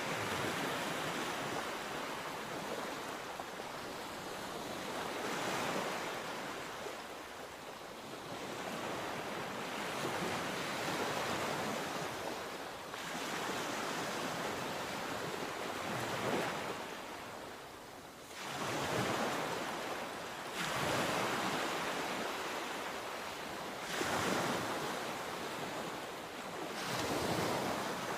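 Sea waves breaking and washing in, in rolling swells every few seconds, with some wind on the microphone.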